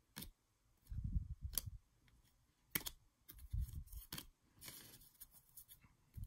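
Glossy baseball trading cards handled by hand: several sharp snaps and flicks as cards are slid off a stack and tossed onto a pile, with a couple of dull bumps and a brief rustle.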